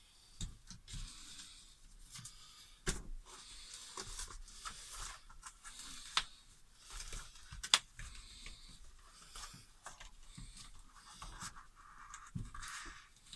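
Rustling and scraping as insulation material is handled and fitted, with several sharp clicks or taps; the loudest comes a little past the middle.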